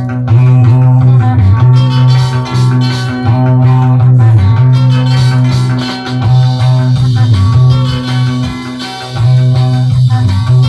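Instrumental break in a 1965 beat-group record: electric guitars over a prominent bass guitar line and drums, with no vocals.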